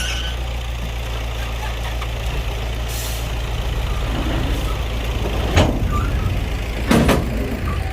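Heavy diesel earthmoving machinery running steadily with a low drone. There is a short hiss about three seconds in and two sharp metallic knocks in the second half.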